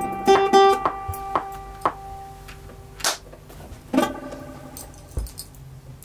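Acoustic guitar being picked: a few plucked notes and chords ring out and die away, with a strummed chord about four seconds in, growing sparser and quieter toward the end.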